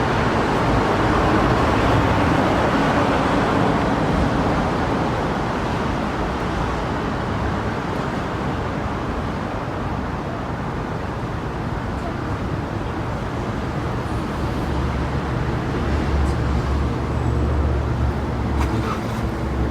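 Steady road traffic noise from passing vehicles, with a low engine hum growing stronger in the second half.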